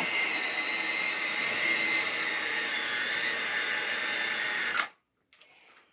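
Electric hand mixer running with a steady high whine, beaters labouring in a thick cream cheese and butter mixture, then switched off with a click near the end. The motor is overloaded and running hot in the stiff batter.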